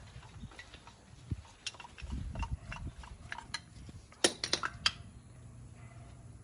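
Light clicks, clinks and knocks of tools and parts being handled, with a quick cluster of sharp clinks about four seconds in, over a low steady hum.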